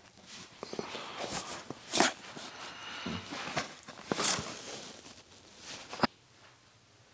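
Soft clothing rustle and light handling knocks close to a clip-on microphone as a person poses and turns, with two louder rustles about two and four seconds in. The sound cuts off to dead silence about six seconds in.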